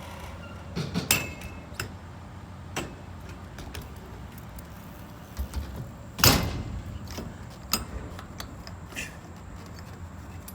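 Clicks and knocks of BMX riding, with one loud thud about six seconds in, as a bike comes down.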